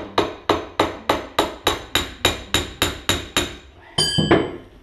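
Hammer tapping a chisel driven under glued stair carpet, a quick even series of strikes about three to four a second, prising the carpet up off the tread. The strikes stop after about three and a half seconds, and a single ringing metallic clang follows about a second later.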